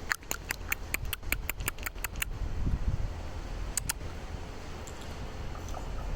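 Common raven making a rapid series of dry clicks, about six a second for roughly two seconds, then two more clicks about four seconds in, over a low rumble.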